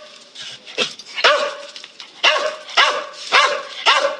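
Dog barking, a steady series of short barks about two a second.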